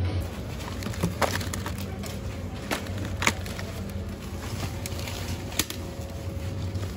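Groceries being handled while shopping: a handful of separate sharp clicks and taps from plastic meat trays and produce going into a plastic shopping basket, over a steady low hum of supermarket background.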